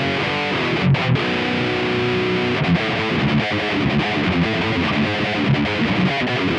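Electric guitar played through a Kemper profiling amplifier with a heavily distorted, high-gain death metal tone: a chord held for about a second near the start, then a fast, choppy riff.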